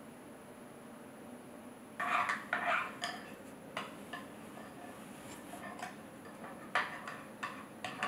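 A metal spoon stirring thick yogurt and peanut butter in a glass bowl, scraping and clinking irregularly against the glass. The stirring starts about two seconds in, after a quiet stretch.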